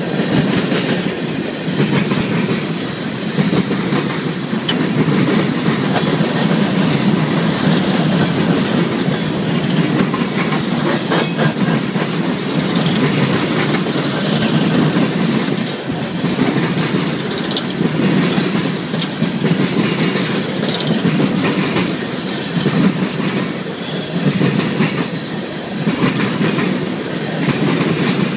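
Coal train cars rolling past at close range: a steady rumble of steel wheels on the rails, with repeated clicking as the wheel sets pass.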